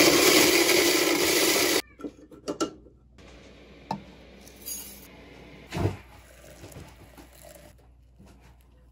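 Krups electric coffee grinder running loud for nearly two seconds, then cutting off suddenly. After it come a few light knocks and rustling as the ground coffee is tipped out of the grinder's cup into a stainless steel French press.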